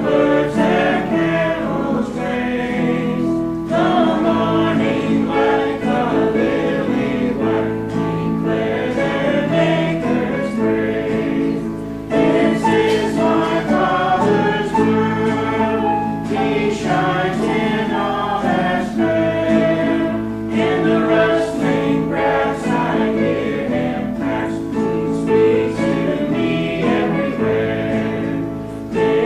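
Choir singing a gospel hymn with musical accompaniment.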